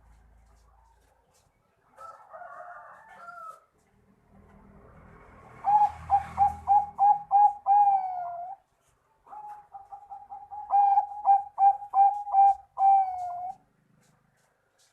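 Bangkok-type zebra dove (perkutut) singing: a soft warble, then two loud phrases of quick staccato coos, each ending in a long drawn-out note.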